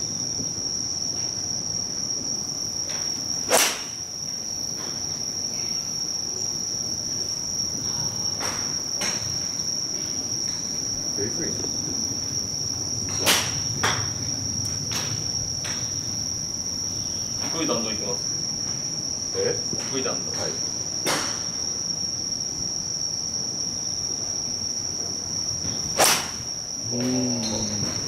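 Night insects trilling in one steady high tone, with the sharp click of iron shots striking golf balls at a driving range: three loud ones, a few seconds in, near the middle and near the end, and several fainter ones in between.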